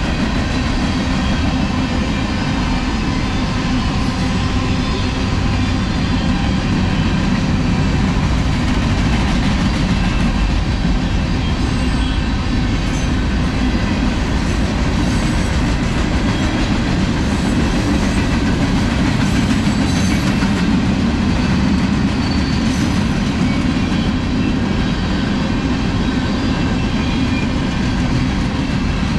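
Freight cars of a Union Pacific train rolling past: a steady, loud rumble and rattle of steel wheels on the rails.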